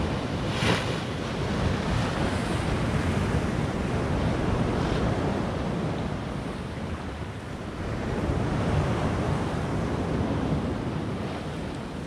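Rough sea surf: big waves breaking and washing over a concrete groyne, with a sharp splash about a second in, and wind rumbling on the microphone.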